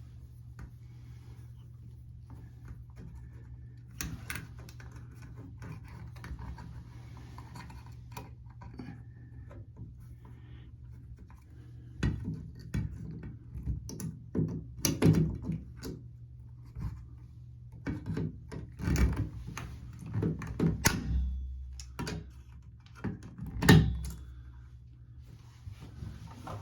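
Scattered clicks, knocks and rubbing as the retaining clip is worked into a Moen shower valve to hold the new cartridge. The clicks grow busier in the second half, with the loudest knock near the end, over a steady low hum.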